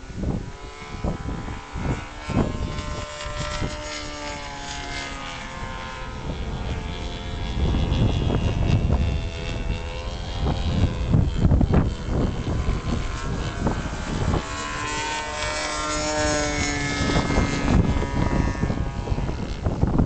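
Glow engine of a radio-control model airplane running in flight overhead, its pitch wavering up and down. Strong wind buffets the microphone, heavier in the second half.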